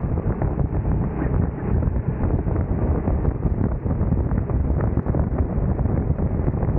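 Wind buffeting the onboard microphone of a go-kart at racing speed, with the kart's engine running underneath in a steady, fluttering rush.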